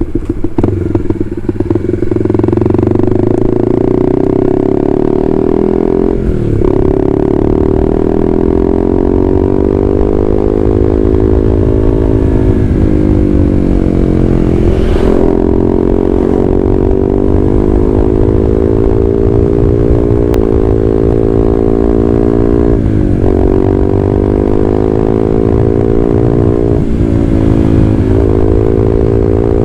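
Honda CB150R's single-cylinder engine through an aftermarket WRX GP6 K1 racing silencer and stainless header, running steadily under way. Its note dips briefly several times and climbs again.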